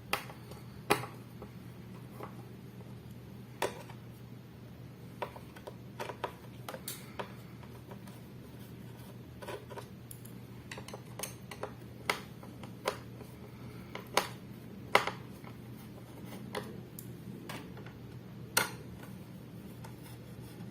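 Scattered small clicks and taps of screws being worked out of a laptop's hard-drive mount, over a low steady hum.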